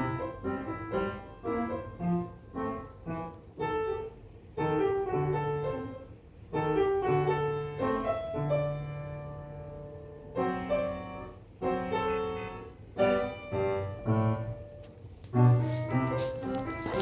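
Solo piano music playing: a gentle melody of struck notes and chords, each note fading after it is played.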